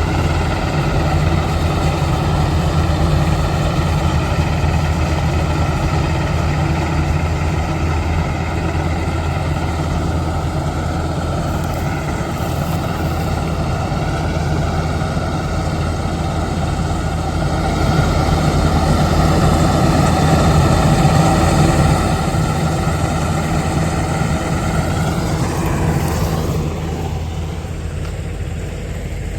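Kartar combine harvester running steadily, a continuous engine drone with a whirring machine note. It grows louder for a few seconds past the middle, then near the end the engine note falls in pitch and the sound fades.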